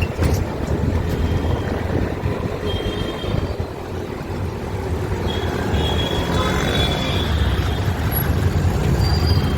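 City street traffic: a steady low rumble of motor vehicles, with a few faint high tones midway through.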